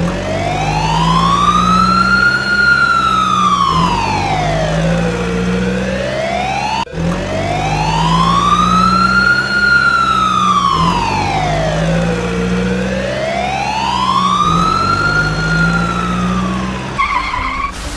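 Electronic wailing siren sound from a toy fire truck, slowly rising and falling about every seven seconds over a low looping engine rumble; the loop cuts off and restarts abruptly about seven seconds in.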